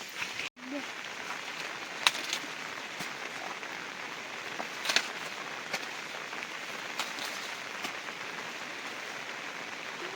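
Heavy rain falling steadily, a constant hiss with sharp drops striking now and then, the loudest about two and five seconds in. The sound drops out for an instant about half a second in.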